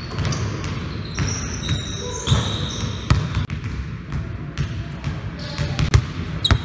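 Basketballs bouncing on a wooden gym floor: irregular thuds from more than one ball, with a few high squeaks between about one and two and a half seconds in.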